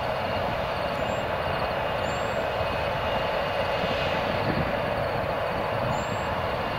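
Rolls-Royce AE 3007 turbofans of an Embraer ERJ-145 regional jet running at low thrust as the aircraft rolls slowly along the runway. The sound is a steady whine over a broad rush of jet noise.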